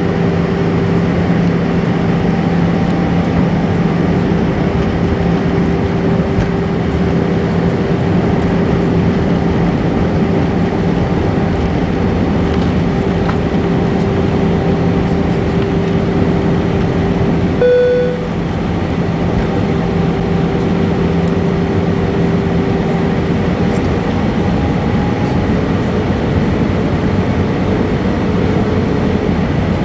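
Airbus A320 in flight: a steady rush of engine and air noise with a constant hum. About two-thirds of the way through there is one short beep, and the noise drops slightly afterwards.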